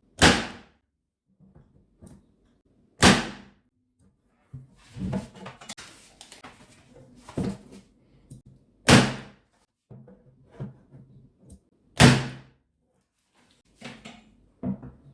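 Parkside PET 25 C3 electric nailer/stapler firing into wood four times, a few seconds apart, each shot a sharp loud snap, with quieter knocks of handling the tool and workpiece between shots.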